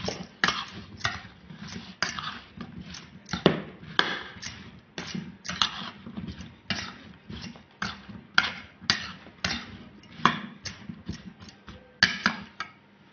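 Metal spoon knocking and scraping against a bowl while tossing chunks of raw banana with spices: a steady run of irregular clinks, two or three a second, that stops just before the end.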